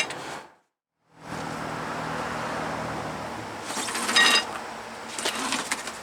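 A moment of dead silence at an edit cut, then steady background noise. About four seconds in, metal parts clink together briefly with a ringing tone, followed by a few lighter metallic taps.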